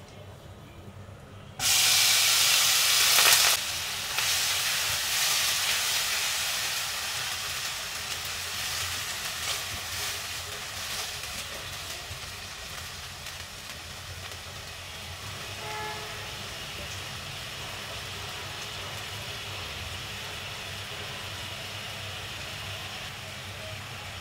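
Grated coconut frying in hot ghee in a nonstick kadai: a sudden loud sizzle about a second and a half in, then a steady sizzle that slowly fades as it is stirred.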